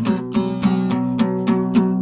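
Acoustic guitar strumming chords in a steady rhythm, about three to four strums a second.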